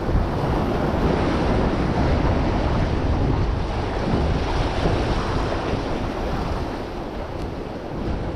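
Ocean surf washing against the boulders of a rock jetty, mixed with wind buffeting the microphone. A steady rushing noise that is fuller through the first few seconds and eases a little near the end.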